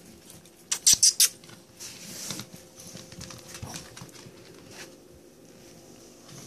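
Small dogs moving about on a tile floor: light pattering of paws and claws with faint scuffs and rustles, and a quick run of three or four loud scuffing noises about a second in.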